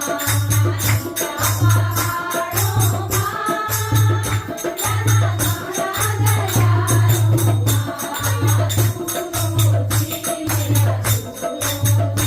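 Song with a singing voice over a jingling, tambourine-like percussion beat and a steady pulsing bass rhythm.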